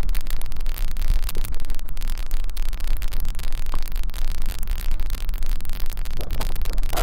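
Steady, loud rushing noise with a constant crackle on the microphone of a camera held at the water's surface.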